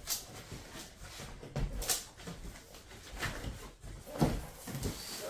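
Rustling and crinkling of loose packing fill and cardboard being handled as a large shipping box is unpacked by hand, with irregular short knocks and scrapes.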